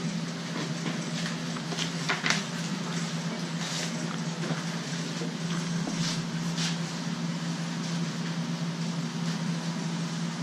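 Steady hum and rushing noise of a running workshop machine, with a few light clicks and taps as a steel drawer slide and plastic jig are handled on plywood.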